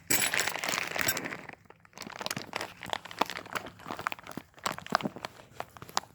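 Crinkling, crunching handling noise: a dense rustle for the first second and a half, then a run of small clicks and rustles.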